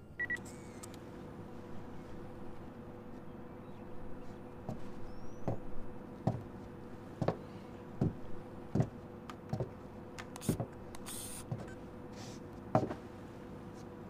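A steady low hum with a series of soft knocks, roughly one a second, starting a few seconds in and stopping near the end, with a short hiss partway through.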